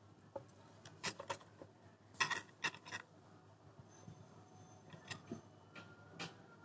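Scattered soft clicks and short rustles of hand embroidery: a needle pushed through cloth stretched taut in an embroidery hoop and thread drawn through, with a brief cluster of rustling about two seconds in.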